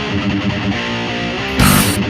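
Rock music with electric guitar, with a loud accent hitting near the end.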